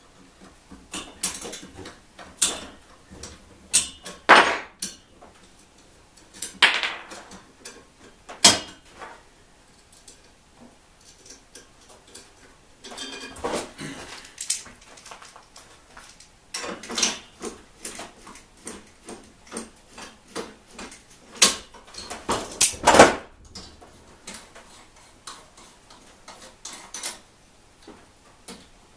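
Metal tools and loose metal parts clinking and clanking at irregular intervals, with a few louder knocks, while a trike's tie rod is being unbolted.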